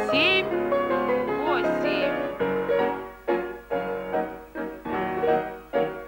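Piano accompaniment for a physical-exercise drill. Held chords in the first half give way to chords struck in a steady beat, about two a second.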